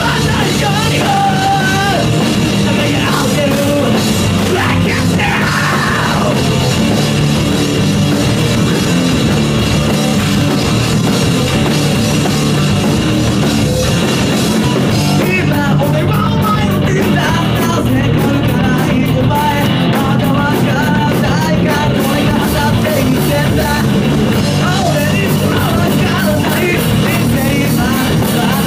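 Rock band playing live at full volume: electric guitar, electric bass and drum kit, with a singer's vocals over them.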